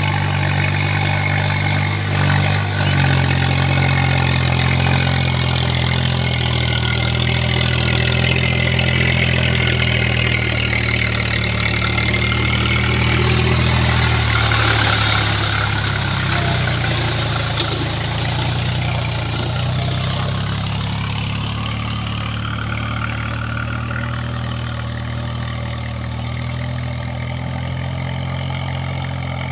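Swaraj 735 FE tractor's three-cylinder diesel engine running steadily under load as it works through a flooded paddy field. It grows louder as it passes close about halfway through, with the churn and splash of its wheels in the mud and water, then fades slightly as it moves away.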